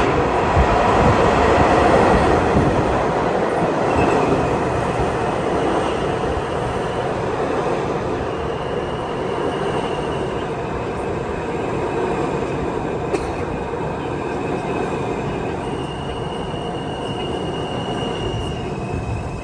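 New York City subway train running at speed between stations, heard from inside the car: a steady rumble of wheels on rail, loudest in the first few seconds, with high wheel squeal coming and going from about four seconds in.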